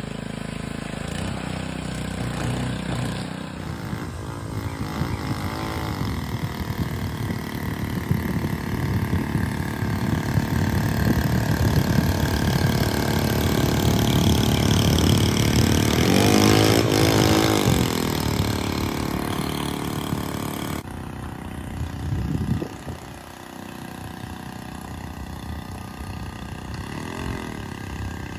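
Small 3 hp Harbor Freight four-stroke engine on a long-tail mud motor running steadily, pushing a kayak across open water. It grows louder toward the middle as the boat comes close, then drops abruptly to a fainter, steady running sound about 21 seconds in.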